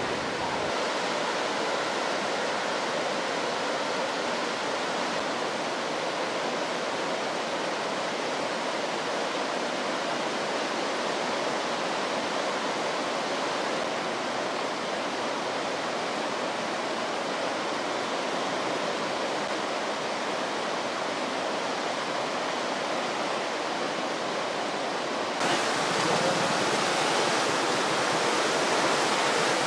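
Fast-flowing river floodwater rushing, a steady, unbroken water noise. About 25 s in it jumps louder and brighter.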